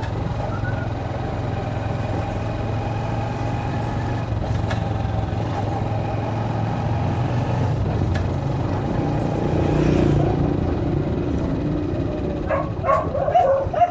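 Honda motorcycle engine running at a low, steady pace while riding. A dog starts barking near the end.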